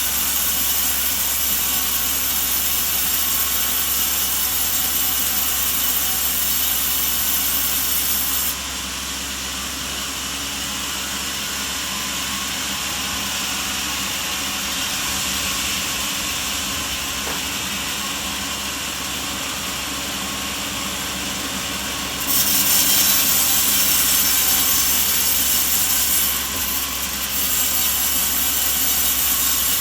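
Sawmill saw and machinery running steadily, cutting wood. The sound drops abruptly about eight seconds in and comes back louder about fourteen seconds later.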